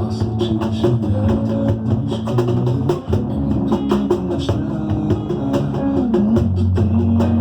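Batucada, Brazilian samba percussion music: fast, steady drum and wood strokes over held low bass notes.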